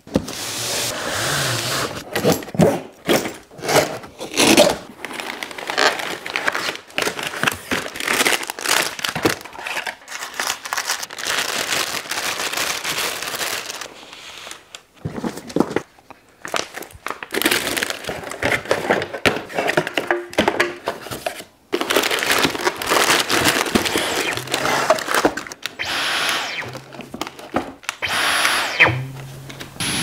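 Cardboard box being torn open and its flaps pulled back, then paper leaflets and packaging rustling, with many sharp knocks and scrapes from parts being handled.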